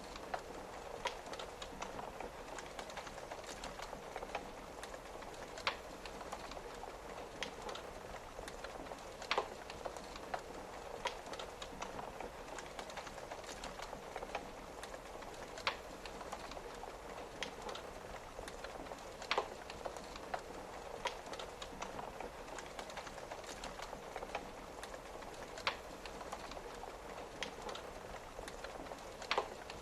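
Steady rain on a window, a soft even hiss, mixed with a wood fire crackling: a sharp pop every few seconds and lighter ticks between.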